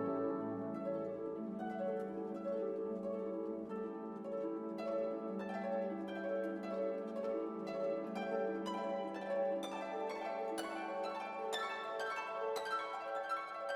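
Background instrumental music: a run of plucked notes, growing busier about a third of the way in, over held lower notes.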